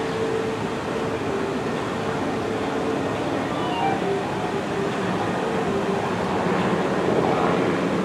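Steady outdoor background noise: a constant rush with a faint machine-like hum running under it.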